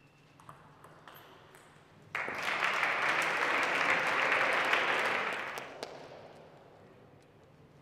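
A few faint table tennis ball clicks as the game-point rally is played, then sudden applause breaking out for the winning point, held for about three seconds before dying away.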